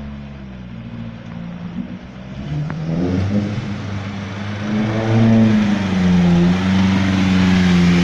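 Lada Niva's engine revving as the off-road car pushes through deep flood water, with water churning and splashing around its wheels. The engine rises in pitch about three seconds in and grows louder as the car comes close.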